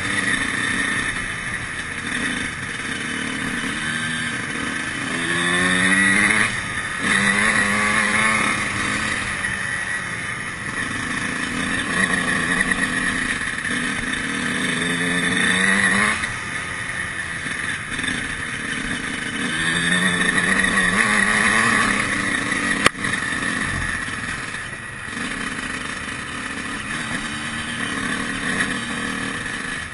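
2003 Honda CR125's two-stroke single-cylinder engine revving as the bike is ridden, its pitch climbing and dropping again and again. A single sharp click about two-thirds of the way through.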